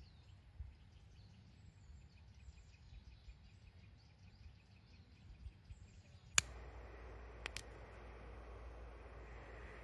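Faint outdoor ambience with faint bird chirps. About six seconds in, a sharp click, after which a louder steady hiss takes over, with two more quick clicks soon after.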